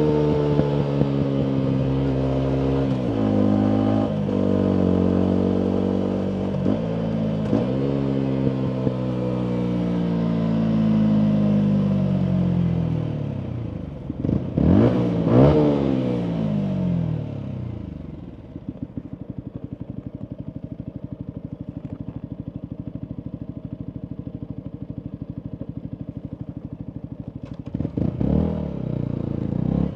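Yamaha MT125's single-cylinder four-stroke engine through a full Akrapovic exhaust, slowing with the engine note falling and a few short blips. After a quick rev it settles to a steady, evenly pulsing idle for about ten seconds. It revs up again near the end.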